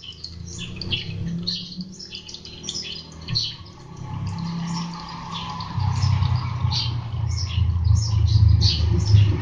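Small birds chirping over and over, with the low rumble of a motor vehicle's engine that grows louder from about six seconds in.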